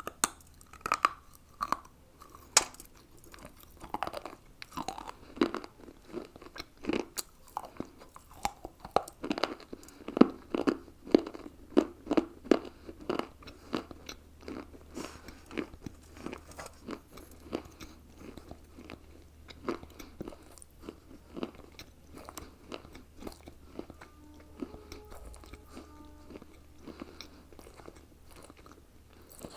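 Close-up crunching and chewing of slate pencil and baked clay pieces: a steady run of sharp bites and grinding chews, densest and loudest in the first half and lighter toward the end.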